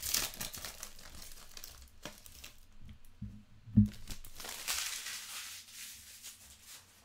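Foil trading-card pack wrapper crinkling and tearing as it is pulled open and the cards are taken out, with a single dull thump a little under four seconds in.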